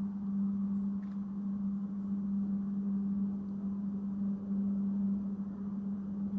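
Steady drone inside a passenger train carriage: one constant low hum over an even rumble, with a faint click about a second in.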